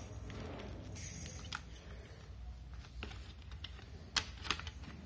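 Light clicks and handling noises of small electrical parts: a wired inline fuse holder, then the perforated metal case of a 12 V 5 A switching power supply, with two sharper clicks a little after four seconds in, over a low steady hum.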